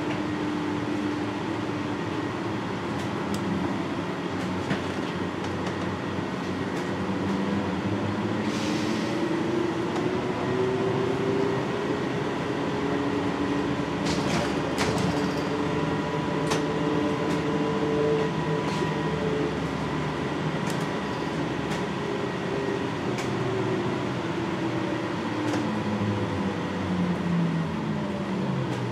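NAW trolleybus's electric traction motor whining as the bus drives on, its pitch rising slowly as it gathers speed and falling toward the end as it slows. A steady higher whine runs underneath, with a few short rattles and clicks from the body.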